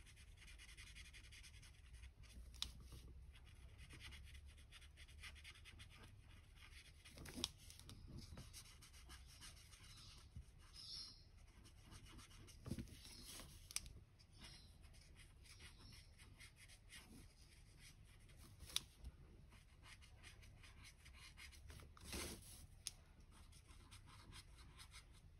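Faint scratching of a felt-tip marker nib colouring on card stock, with a few soft clicks and taps now and then.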